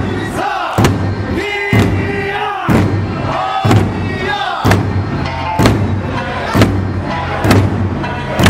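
Eisa drumming: large Okinawan barrel drums (ōdaiko) and small hand drums struck together in a steady beat about once a second, over a sung Eisa folk song, with the dancers' shouted calls.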